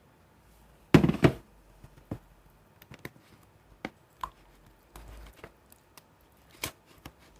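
Slime being handled and played with by hand, giving irregular sharp clicks and pops, the loudest two close together about a second in, then softer ones scattered after.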